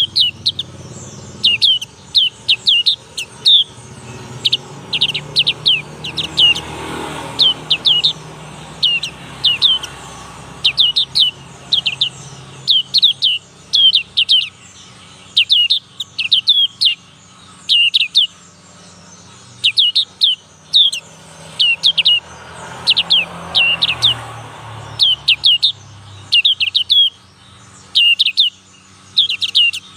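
Young black-capped white-eye calling with short, high, downward-sweeping chirps in quick groups of two to four, repeated about once a second. It is a juvenile still learning its song.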